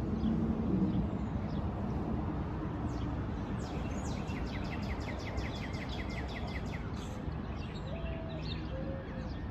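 A bird sings a fast, even trill of repeated chirps lasting about three seconds, starting a few seconds in, over steady outdoor background noise; a few short, faint notes follow near the end.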